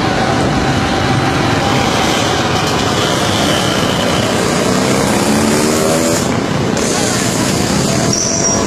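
Loud, steady street noise of running car and motorcycle engines with voices mixed in; one pitched sound rises about halfway through.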